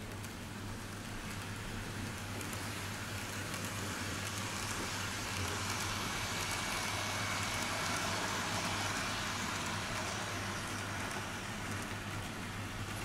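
Model train running on the track, its motor and wheels whirring louder as it approaches, loudest as it passes, then fading away, over a steady low hum.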